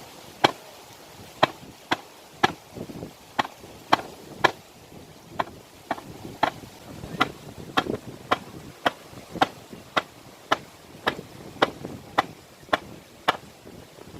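Sharp, short knocks struck about twice a second in a steady beat, over a low rumbling background.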